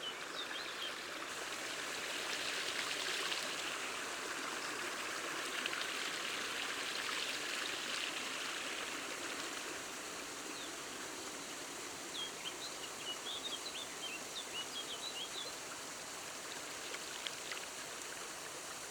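Steady rushing water of an upland stream. A run of short, high bird chirps comes in about two-thirds of the way through.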